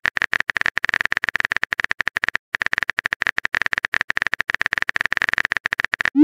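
Keyboard-typing sound effect: a fast string of clicks with a short pause about two and a half seconds in. A rising swoosh starts right at the end as the message is sent.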